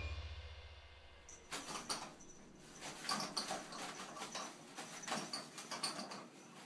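Toilet paper rustling and crinkling as a kitten claws at the roll and pulls paper off it: irregular soft scratches and rustles starting about a second and a half in.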